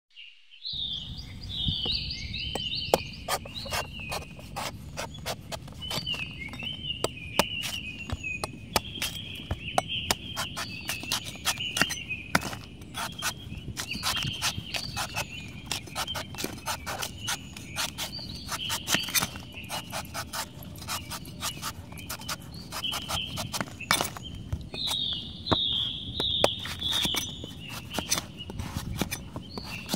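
A cleaver chopping and shaving the husk of a young green coconut: many sharp chops at an uneven pace. Birds chirp steadily behind it.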